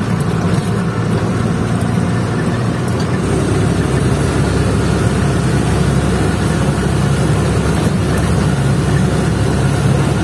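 A truck engine running steadily as the truck drives, heard inside the cab as a low drone with road noise; the deepest part of the hum grows stronger about three seconds in.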